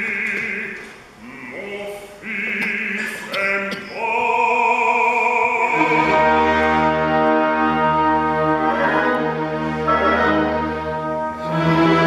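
Operatic solo singing with a wide vibrato, in short phrases at first and then in long held notes, with the orchestra coming in on sustained low notes about halfway through.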